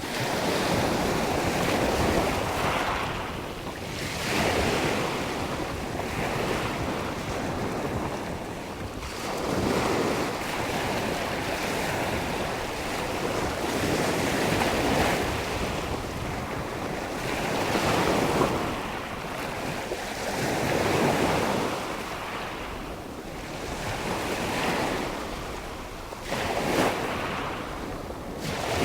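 Sea waves breaking and washing on the shore, swelling and easing every few seconds, with wind buffeting the microphone.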